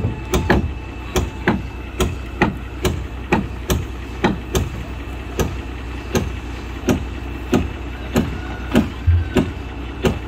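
Repeated hammer blows, roughly two a second, knocking an old wooden rub-rail plank loose from a wooden boat hull. A steady low hum runs underneath.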